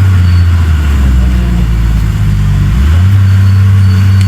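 Heavy diesel engine of a bulldozer running loud, its pitch dropping about half a second in and rising back near three seconds.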